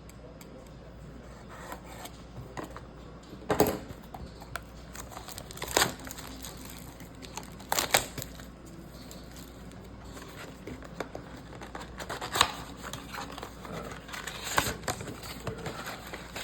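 Crinkling and tearing of trading-card pack wrappers and a cardboard blaster box being handled and opened, with several sharp rustles and taps scattered through.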